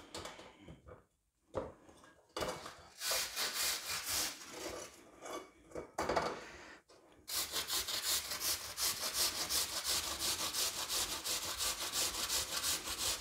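Raw potato being grated on the fine side of a stainless steel box grater. Irregular scraping and a knock or two at first, then from about halfway in a steady run of quick rasping strokes, about five a second.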